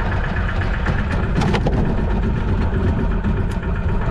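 Small fishing boat's engine idling steadily with an even low throb, and one brief knock about a second and a half in.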